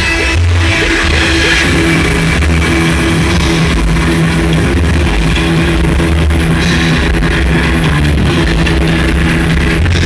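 Loud music with guitar and drums over a deep, steady bass line.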